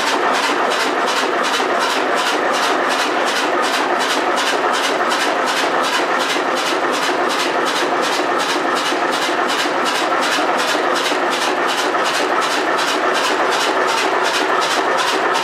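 A 1925 Brons two-cylinder 40 hp engine running steadily at an even speed, with a rapid, regular beat of about four a second.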